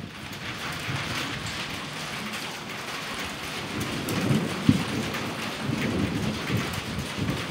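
Thunderstorm: steady rain hiss, with low thunder rumbles rolling in about four seconds in and a sharper jolt just before five seconds.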